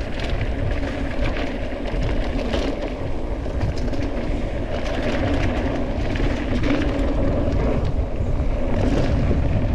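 Steady riding noise on a helmet camera: tyres rumbling over a rough trail and wind on the microphone, with scattered rattles and knocks.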